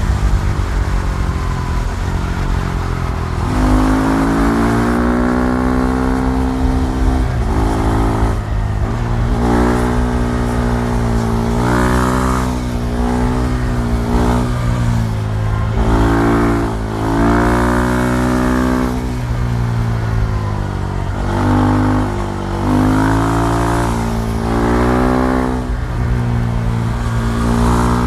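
KTM Duke 390 single-cylinder engine pulling under throttle. Its pitch climbs and drops back again and again as it accelerates and shifts through the gears, with short backings-off between pulls.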